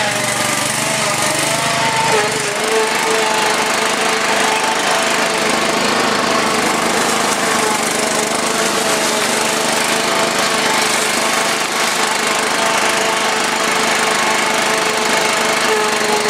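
Small petrol mower-type engine on a homemade tracked vehicle, running steadily under load as the machine drives over rough ground. Its pitch rises a little about two seconds in, then holds with small wavers.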